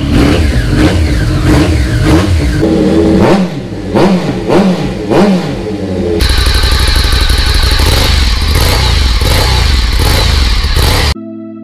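Triumph motorcycle engine with an aftermarket Yoshimura exhaust being revved in repeated blips, its pitch rising and falling several times. About six seconds in, an abrupt cut to another motorcycle engine running at a steady speed. Soft synthesizer music begins near the end.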